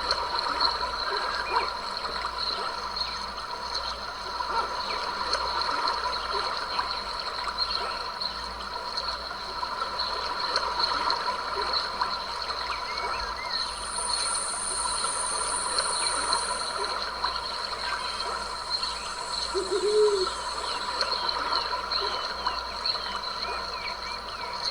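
Small stream trickling and splashing, under a steady chorus of insects holding high, even tones. A higher buzz joins for about three seconds in the middle.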